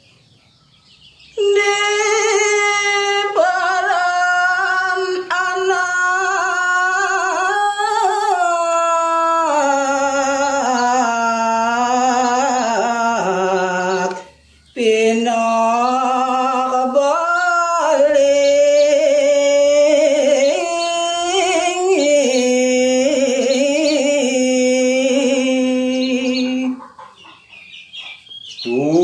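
A man singing a Balinese geguritan verse in the pupuh Ginanti metre, solo and without instruments. He holds long notes with slow, ornamented turns of pitch, in two long phrases with a short breath between them about fourteen seconds in.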